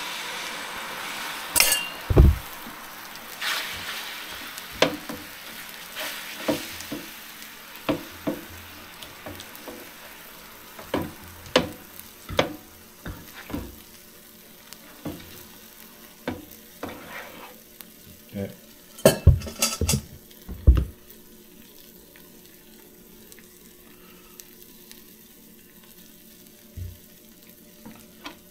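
Food sizzling on a Blackstone flat-top griddle. The sizzle is strongest at the start and fades over the first half. Short sharp taps and knocks are heard throughout, the loudest about two seconds in and a close cluster around nineteen to twenty-one seconds.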